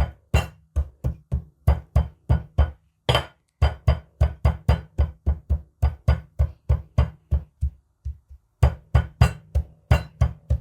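Ginger being pounded with a bottle: steady repeated knocks, about four a second, with a short break about eight seconds in.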